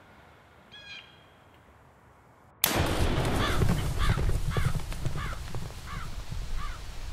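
A single rifle shot cracks out suddenly a little after two and a half seconds in. A string of crow caws follows at about two a second, fading away. Before the shot there is one short bird call about a second in.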